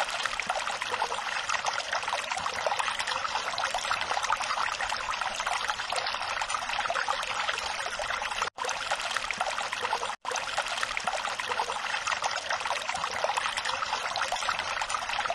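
Water trickling and running steadily, cutting out for an instant twice a little past the middle.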